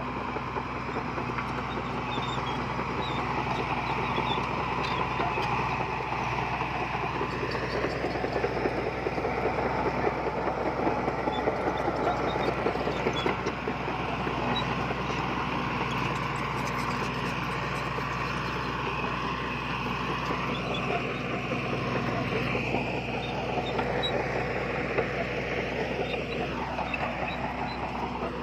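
Heavy diesel engine of earthmoving machinery running steadily, under a dense clattering noise that is heaviest in the middle.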